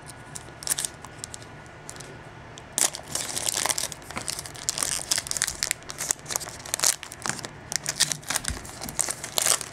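Foil wrapper of a 2012 Panini Playbook football card pack being torn open and crinkled by hand, with a dense run of sharp, irregular crackles starting about three seconds in.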